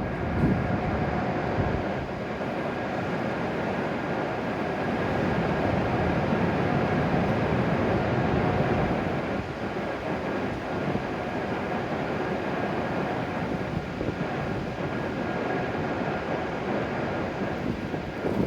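Steady noise of a W7 series Shinkansen train at the station, with a faint steady whine over it.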